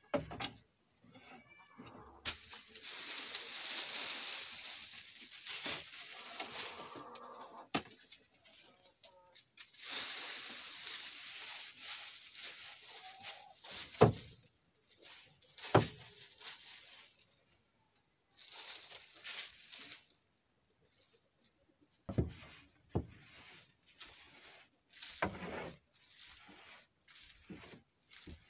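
Old nest-box bedding being brushed and scraped out of wooden nesting boxes with a hand brush and dustpan: stretches of scratchy sweeping broken by sharp knocks of the tools against the boards, with more knocks and short scrapes in the last few seconds. Chickens cluck now and then.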